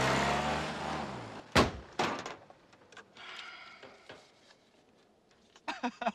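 A small car's engine running and fading away, then two sharp door slams about half a second apart, followed by faint knocks.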